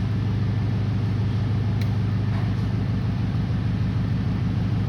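A steady low hum at an even level, with a single short click about two seconds in.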